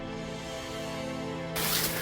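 Background music holding a steady sustained chord, cut off about one and a half seconds in by a loud hiss with a few clicks.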